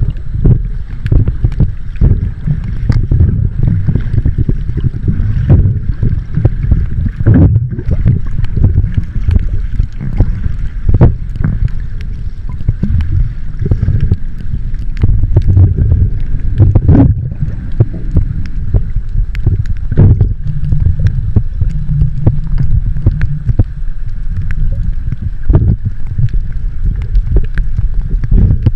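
Muffled water noise from an underwater recording: a steady low rumble with scattered sharp clicks and crackles throughout.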